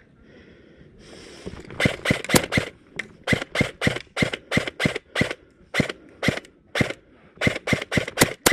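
Krytac airsoft electric rifle firing a rapid string of single shots, about three to four a second, some in quick pairs, starting about two seconds in.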